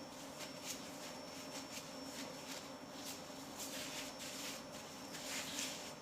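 Faint kitchen handling noises as risen bread dough is worked on a counter: scattered light taps with soft rustling and scraping, a little louder in the second half.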